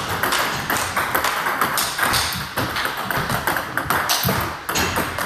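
Table tennis balls clicking in quick succession off the paddle and the tabletop during a fast practice drill, several sharp hits a second.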